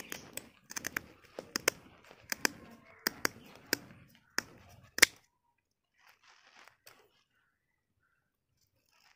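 Whole fresh fish being handled on a large leaf: a run of sharp clicks and slaps as the fish are picked up and set back down, stopping about five seconds in.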